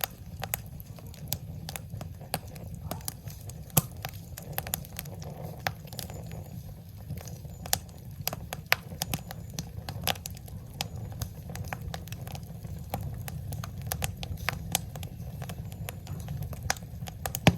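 Wood fire crackling, with irregular sharp pops over a steady low rumble; one louder pop about four seconds in.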